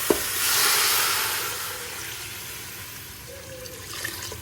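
A bowl of water poured into a hot pressure cooker where beef is frying in oil: a short knock, then a loud steaming hiss that swells within the first second and slowly dies away.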